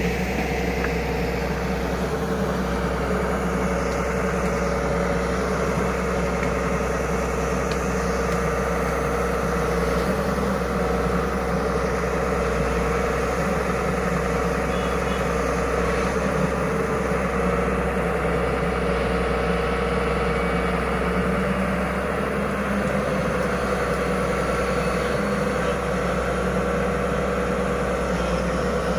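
Hyundai 210 crawler excavator's diesel engine running steadily.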